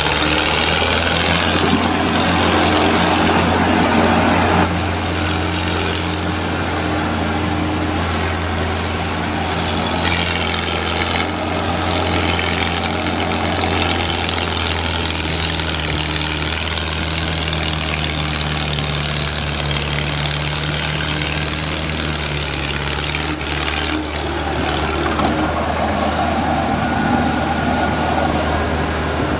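Mahindra Arjun 605 tractor's diesel engine running steadily at an even pitch while hauling a fully loaded soil trolley, working under heavy load.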